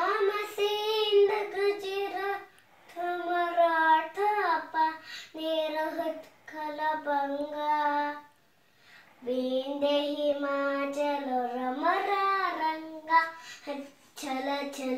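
A young girl singing alone, without accompaniment, in held notes with short breaks between phrases and a pause of about a second midway.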